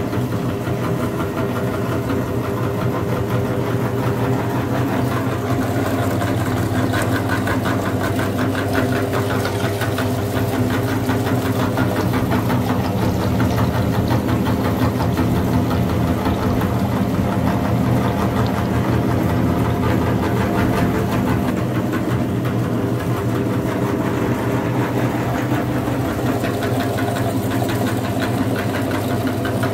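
Belt-driven meat grinder running steadily, its motor and auger giving a constant mechanical hum with a fast, even rattle while it grinds jelly.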